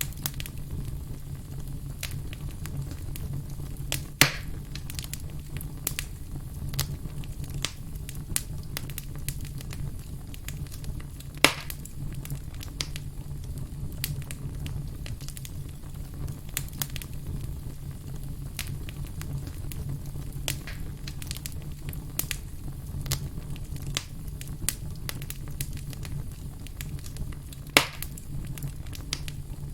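Wood campfire crackling, with a steady run of small pops and snaps and three louder pops, over a steady low rumble.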